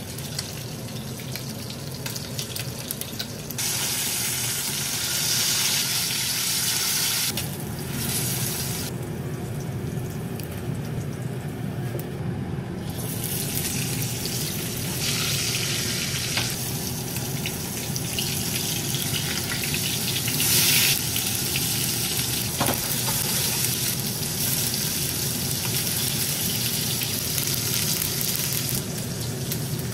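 Sausages and bacon sizzling in hot fat in frying pans, a steady hiss that swells about four seconds in, drops back for a few seconds, then rises again.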